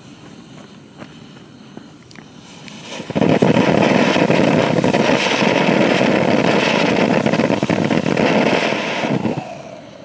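Firework fountain from a compound fountain cake starts about three seconds in and sprays sparks with a loud, steady hissing rush for about six seconds, then dies away.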